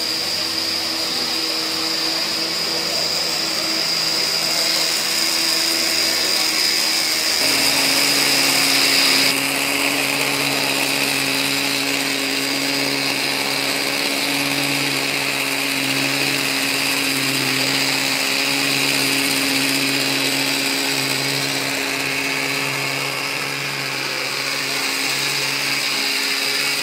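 Small internal-combustion engine of a G scale live diesel model locomotive running steadily as the loco travels around the track, with a high whine above it. Its pitch steps down slightly about a quarter of the way through.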